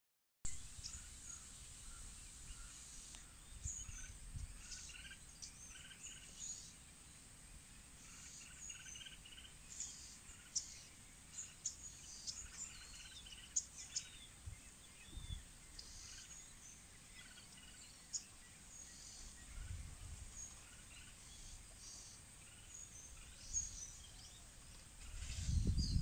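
Faint outdoor ambience with scattered short bird chirps and calls throughout, and a low rumble building near the end.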